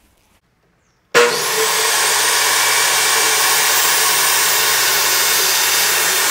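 Jobsite table saw switched on about a second in and running steadily as its blade rips a 4-inch strip off a sheet of MDF.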